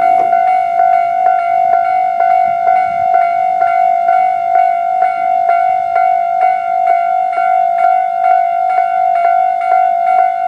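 Japanese railway level crossing's electronic warning bell ringing in its standard tone: a repeated bell-like 'kan-kan' strike, about three a second, over a steady ringing tone.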